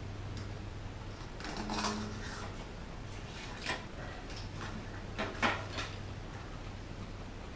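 Scattered metallic clicks and rattles of a bicycle's front wheel hub and quick-release skewer being worked into the fork dropouts, with the loudest clunks about two seconds in and again about five and a half seconds in, over a low steady hum.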